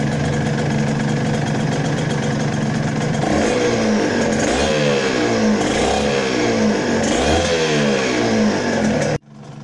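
Yamaha TZM 150's single-cylinder two-stroke engine idling, then revved in a string of short blips about once a second from about three seconds in, each rising and falling in pitch; the sound cuts off suddenly near the end.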